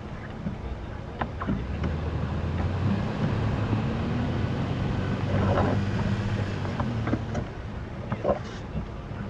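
Off-road 4x4's engine taking up load as it slowly pulls a vehicle stuck in deep sand on a recovery strap. The engine note rises and holds for a few seconds in the middle, then eases off, with a few scattered clicks and knocks.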